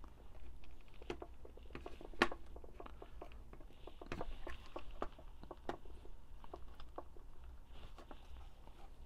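Hands handling the plastic clamshell frame of a less-lethal launcher on a wooden table: scattered light clicks and taps, with one sharper knock about two seconds in.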